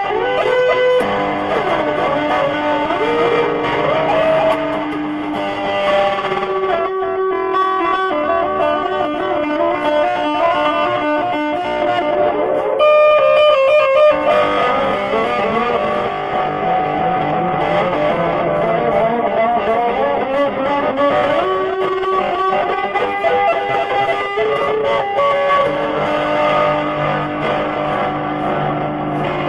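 Music led by an electric guitar through effects, playing melodic lines with bent and wavering notes.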